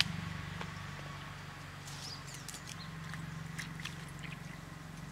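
Leaves being swished and rubbed in a small stainless-steel bowl of water, with light splashes and small clicks, over a steady low hum.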